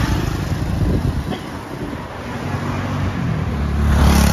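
Road traffic passing close by: a motorbike and car go by at the start, then a car's engine grows louder and passes near the end.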